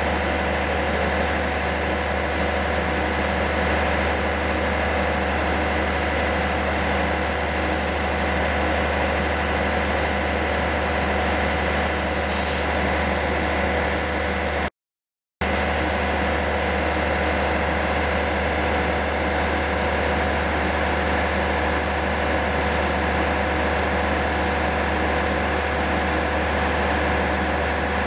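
Steady idling drone of a train standing at the platform: a low hum under several held tones that do not change. The sound cuts out for about half a second about halfway through.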